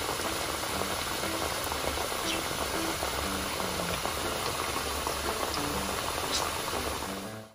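Starch-coated potato pieces frying in hot oil: a steady, dense sizzle of bubbling oil.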